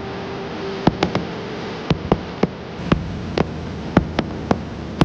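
Fireworks going off: a quick, irregular series of sharp pops, about a dozen in five seconds, over a steady background hiss.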